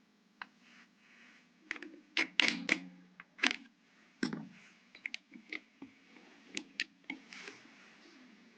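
Irregular sharp clicks and knocks of computer hardware being handled and fitted during a desktop PC build, a dozen or so small plastic-and-metal taps, with a faint low hum underneath.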